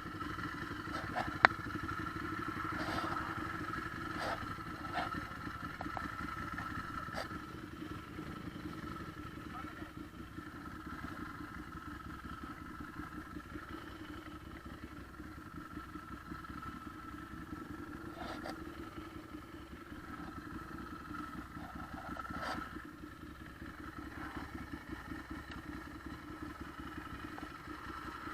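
Motorcycle engine running steadily, with a few short clicks and knocks, the sharpest about a second and a half in.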